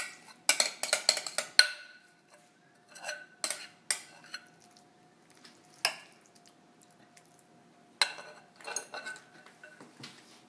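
Metal spoon scraping and clinking against glass bowls as a creamy herring salad is scooped out, in a few short spells with quiet gaps between. A few strikes leave the glass ringing briefly.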